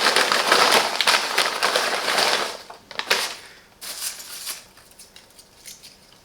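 Freshly popped microwave popcorn being handled: a hot paper popcorn bag crackling and rustling for about two and a half seconds, then a few short rustles.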